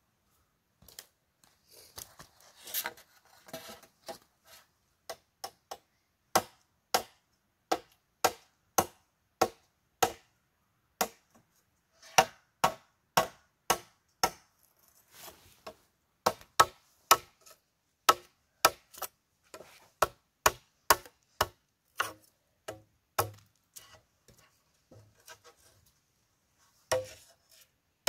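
A hand tool striking bamboo in a long series of sharp blows, about two a second, with short pauses between runs. There is some rustling and scraping in the first few seconds, and some blows later on carry a dull thud.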